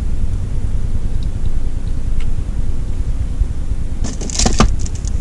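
Steady low rumble inside a car's cabin, with a short burst of clinking, rattling clicks about four seconds in.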